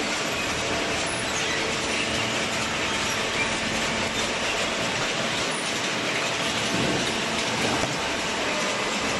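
Industrial cardboard baler running, a steady, even mechanical noise with fine rattling throughout.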